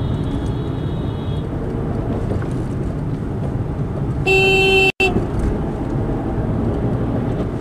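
Steady engine and road noise heard from inside a moving car, with one loud car horn blast lasting under a second about four seconds in.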